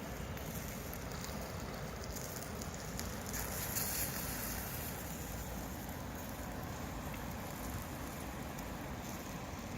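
Wood campfire crackling, with a steady rushing noise underneath.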